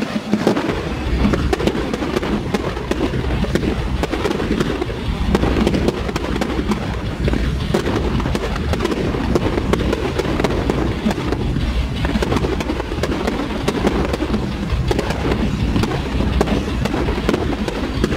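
Fireworks display: a dense, continuous run of bangs and crackling from aerial shells, with music playing underneath.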